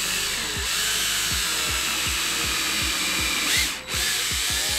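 Cordless drill running steadily as it pre-drills a pilot hole through a thin wooden fence-picket slat into the dowel trunk. It lets off briefly about four seconds in, then runs again.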